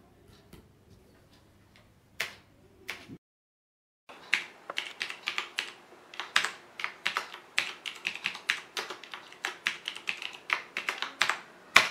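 USB computer keyboard being typed on: a quick, uneven run of key clicks, several a second, with one louder keystroke near the end. Before the typing there are two separate clicks.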